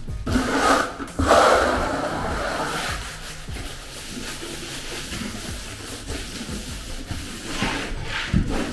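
Flat trowel scraping over a thin tile uncoupling membrane (Blanke Secumat) bedded in thinset, a rasping rub in sweeping strokes that presses the mat down and pushes the air out. The strokes are strongest in the first few seconds and come again near the end, over background music.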